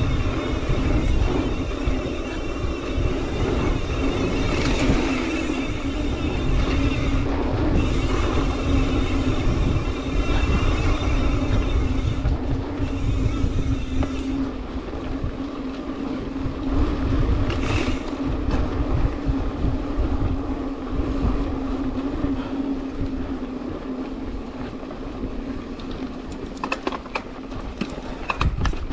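Mountain bike on the move on a dirt and rock trail: wind buffeting the microphone and tyre rumble, with a steady buzz from the Industry Nine Hydra rear hub freewheeling. There is a quick run of sharp clicks and knocks from the bike rattling over rough ground shortly before the end.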